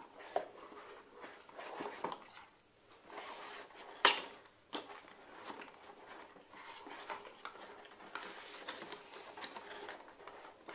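Handling noise as the Raijintek Orcus 360 mm radiator is worked out of its cardboard packaging tray: rustling and small clicks, with one sharp knock about four seconds in.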